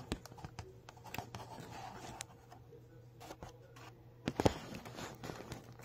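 Irregular scraping, rustling and clicking of a camera brushing against the paper backdrop print, with a couple of louder knocks about four and a half seconds in, over a faint low steady hum.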